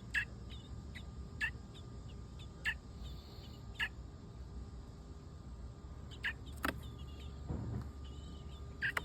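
Bird chirping in short single peeps, about one a second at first and then two more later, with a dull thump about three quarters of the way through, over a steady low rumble.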